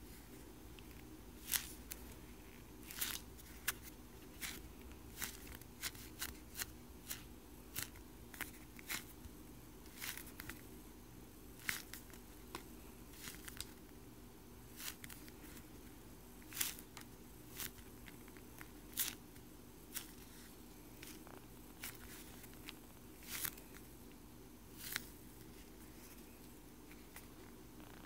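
Foam sandwich-slice squishy being squeezed and folded between fingers, giving faint, irregular crackles and clicks, one or two a second, over a steady low hum.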